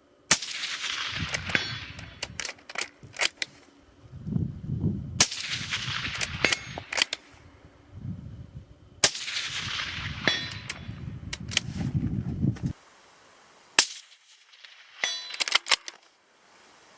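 Three suppressed shots from a Tikka T3X bolt-action rifle with an Ase Utra SL5i suppressor, about four seconds apart, each trailing off in a long echo and followed by several sharp clicks. Near the end come one more sharp crack and a short run of clicks.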